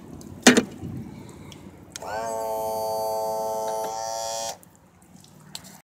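Outboard motor's power trim and tilt unit: its electric pump motor starts with a short rising whine about two seconds in and runs with a steady whine for about two and a half seconds while the switch on the cowling is held. A sharp knock comes about half a second in.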